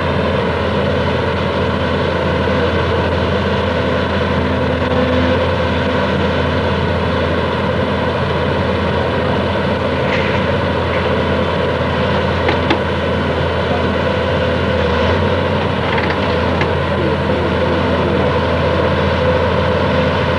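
Hydraulic excavator's diesel engine running steadily as it pulls down a house's masonry wall, with a few sharp knocks and cracks about halfway through.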